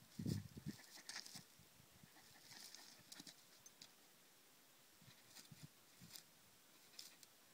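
Faint, scattered crunching and ticking of a dog's paws on dry, stony ground as it moves around a bush, with a short low thump just after the start.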